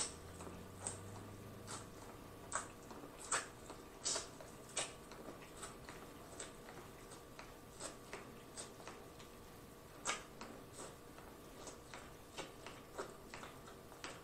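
Eating corn on the cob: irregular crisp clicks and wet smacks as kernels are bitten off the cob and chewed, one or two a second and uneven in strength.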